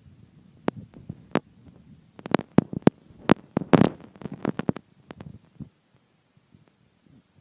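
A rapid, irregular series of sharp clicks and knocks, sparse at first, clustered thickly about two to five seconds in, then thinning out and stopping.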